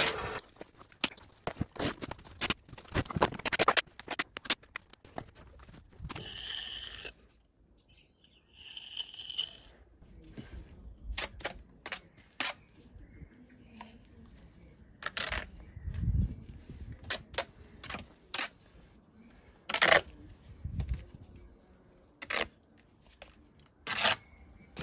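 Steel bricklaying trowel scraping and slicing wet mortar and tapping against clay bricks: a string of irregular sharp taps and clicks with a couple of short scrapes, and one dull thump about two-thirds of the way through.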